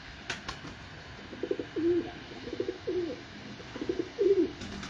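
Domestic pigeon cooing three times, each a short rolling burr that runs into a low coo gliding up and down.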